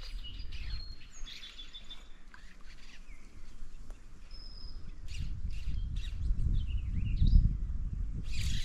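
Songbirds singing and calling: short thin whistles and chirps, some sliding in pitch, over a low rumble that grows louder in the second half.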